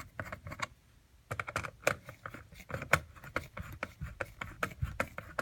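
Irregular clicks and taps from a transmitter unit and its casing being handled and fitted into place, with a brief pause about a second in.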